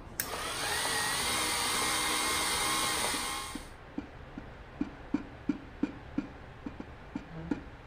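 An old film camera's mechanism whirring, its pitch rising over the first second and then running steadily, cut off suddenly after about three and a half seconds. Then light, regular clicks follow, about three a second.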